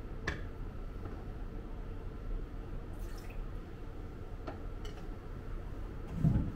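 Pour-over coffee dripping through the dripper into a stainless server, with a sharp click of the dripper being handled early and a few light ticks, over a steady low hum. A low thump near the end is the loudest sound.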